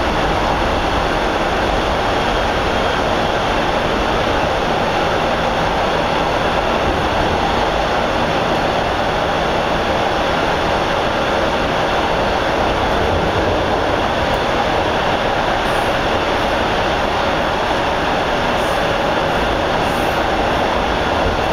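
A TTC Bombardier T1 subway car running at a steady speed, heard from inside the passenger cabin: a loud, constant rush of wheels on rail and running gear.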